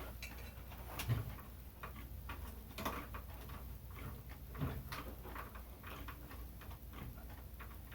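Small irregular clicks and rustles of electrical wires being handled and a plastic wire nut being twisted on to join the ceiling fan's black wires.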